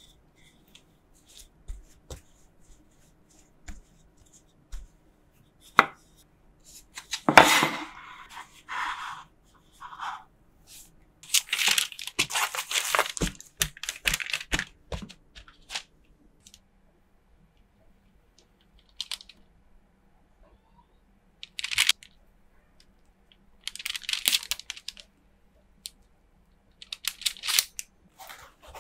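Bread dough being handled on a parchment-lined baking tray: parchment paper rustling and crinkling in scattered bursts as hands press and shape the dough, with a few light sharp knocks in between.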